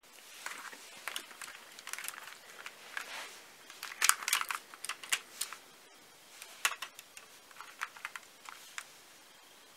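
Plastic LEGO bricks of a brick-built MAC-11 model gun clicking and rattling as it is handled and turned over in the hands, with a cluster of louder clicks about four seconds in.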